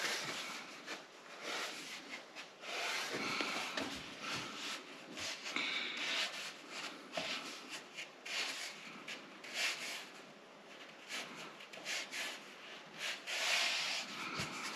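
Hands rubbing and handling a felt-upholstered pressboard panel: irregular scraping rustles of the felt with scattered light knocks.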